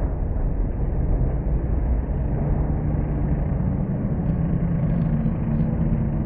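Banger racing cars' engines running steadily, a continuous mix of engine noise with a low hum.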